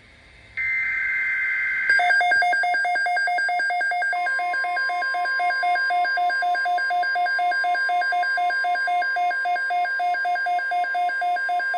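NOAA Weather Radio alert opening a tornado watch: a short burst of digital SAME header data tones, then the receiver's rapid pulsing electronic alarm beeps. About four seconds in, the steady weather radio warning alarm tone joins the beeps.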